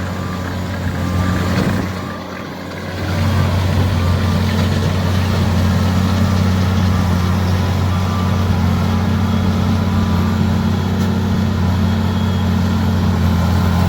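JCB Fastrac 2155 tractor running steadily under load, driving a Case 8585 large square baler through damp grass hay. The sound drops briefly about two seconds in, then holds steady.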